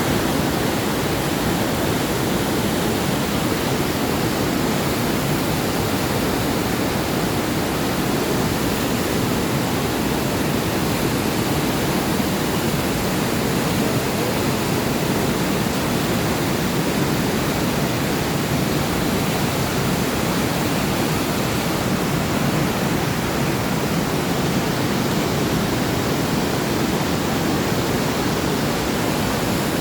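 Neyyar River water rushing over rocks at a cascade: a steady, unbroken rush of water that does not change.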